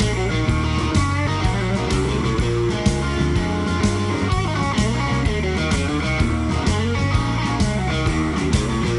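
Blues-rock band music: electric guitar playing over a steady bass line and drums.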